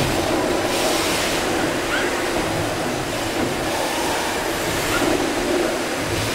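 Gimson steam beam engines running: a steady low mechanical rumble, with a hiss that swells and fades about every three seconds in time with the strokes.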